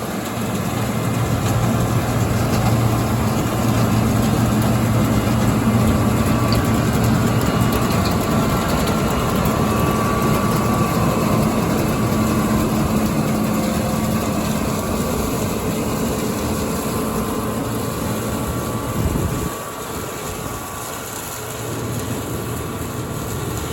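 John Deere 9400 combine running as it picks up an oat windrow with its pickup head, a steady engine hum over a broad rush of machinery and wind noise. It grows louder in the first few seconds and drops away about three quarters of the way through as the combine moves off.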